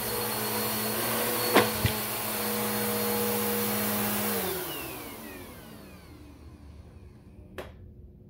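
Bissell upright vacuum cleaner running steadily, with two sharp clacks about a second and a half in, then its motor winding down with a falling whine from about four and a half seconds in as it is switched off. A faint click comes near the end.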